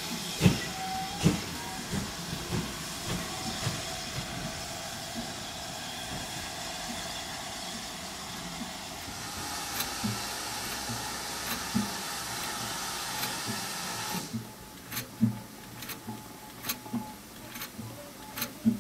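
Leeds-built steam traction engine running: a steady hiss of steam with regular knocks from its motion. About 14 seconds in the hiss stops suddenly, leaving slower, separate knocks and clicks as the engine turns.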